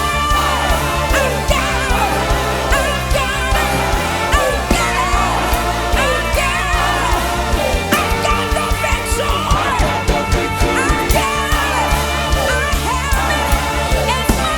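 Loud worship music: a singing voice with wavering melody lines over a band with a steady bass and drum beat.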